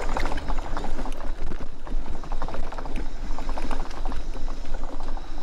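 Mobility scooter rolling along a bumpy dirt trail strewn with dry leaves: a steady low rumble with many irregular clicks and crackles from the ride over the rough ground.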